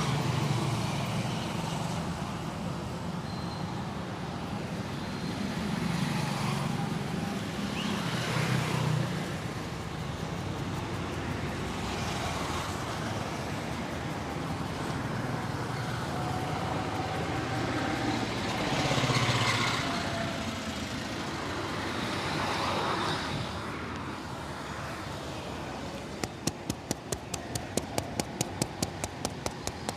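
Steady street traffic noise, with passing vehicles swelling and fading; the loudest pass comes about two-thirds of the way through. Near the end, a quick, even run of sharp slaps begins, about four a second: hands tapping in a percussive massage.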